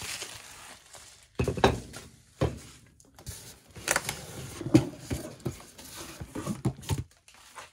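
Hands opening the flaps of a cardboard box and reaching inside, with scattered knocks and rustles of cardboard and parts being moved.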